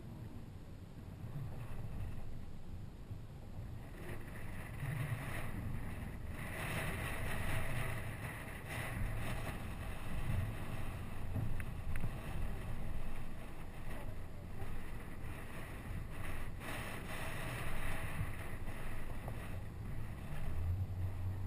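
Toyota Tacoma pickup driving down a rocky dirt trail: a low engine rumble under the crunch and rattle of tyres over gravel and stones, with wind buffeting the microphone. The crunching gets busier and louder about four seconds in.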